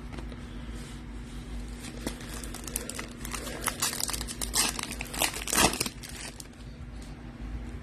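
Foil wrapper of a trading-card pack crinkling and tearing as it is ripped open, in a run of crackly rustles that is densest in the middle of the stretch and dies away about a second and a half before the end.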